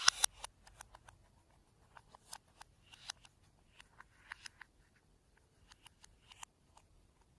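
A run of small, irregular clicks and crackles from hands handling things at close range, the loudest a sharp click right at the start after a short swish.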